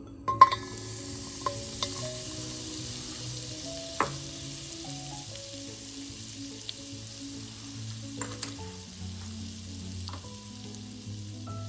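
Vegetables sizzling in a hot pan. The sizzle starts suddenly about a third of a second in with a loud clank, and a few utensil knocks follow as they are stirred. Soft background music runs underneath.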